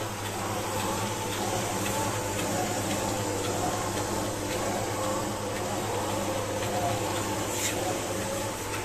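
Automatic cotton wick making machine running steadily: a constant electric motor hum under a wavering mechanical whir, with no break while it feeds and cuts cotton into short wicks.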